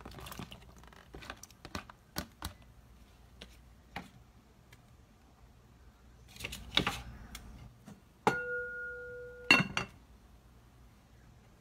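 A hammered-metal pot lid set onto a metal pot: a sharp clank that rings on in a steady tone for about a second, then a second clank as it settles. Before that, scattered light clicks and taps as sliced onions go into the pot.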